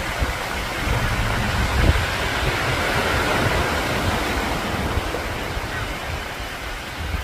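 Steady rain falling: an even hiss that swells a little in the middle, over an uneven low rumble.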